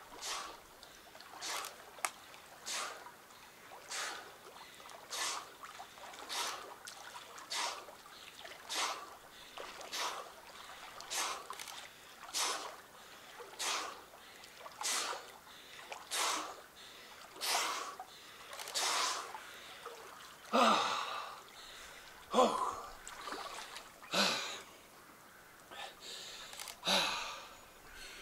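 A cold-water swimmer breathing hard and rhythmically, about one breath every second or so. In the last third the breaths become slower, louder gasps with some voice in them.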